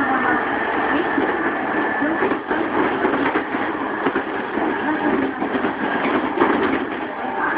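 Running sound inside a JR East E233-3000 series electric motor car: a steady rumble of wheels on rail mixed with the traction motors and Hitachi IGBT VVVF inverter, heard through a mobile phone's microphone.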